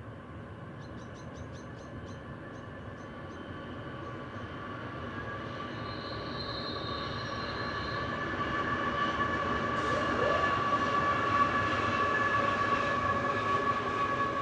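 A Qube steel freight train hauled by three QL-class C44aci diesel locomotives approaching and growing steadily louder: a low rumble with a steady high-pitched whine on top.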